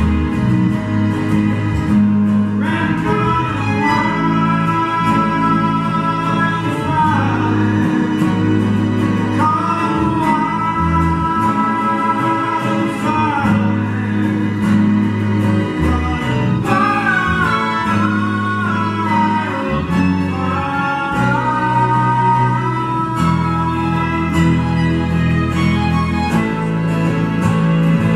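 Live country-folk ensemble playing: acoustic guitar and electric bass under a string section of violins and cello, with long held melody notes that slide from one pitch to the next.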